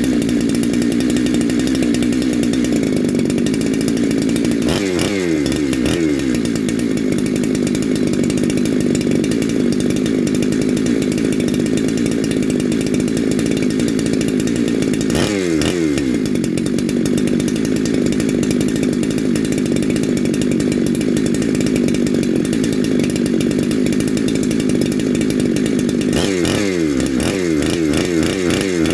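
Neo-tec NH872 chainsaw, a two-stroke 372XP clone with a Farmertec big bore kit, running on its first heat cycle. It runs steadily, with the revs swinging up and down about 5 seconds in, again about 15 seconds in, and repeatedly near the end.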